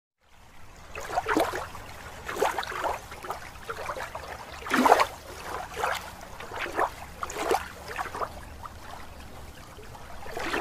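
Underwater water sound effect: bubbling and gurgling in irregular bursts over a low rumble, the loudest burst about halfway through.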